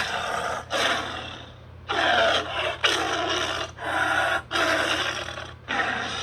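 A run of about six snarls from the robotic cheetah Cheetor, a film creature sound effect, each lasting roughly half a second to a second and a half, with short breaks between them.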